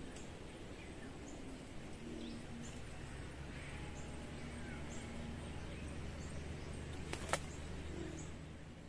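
Forest bird calls: short high chirps repeating about once a second, a few faint gliding whistles and a low held note over a steady low rumble, with one sharp click about seven seconds in.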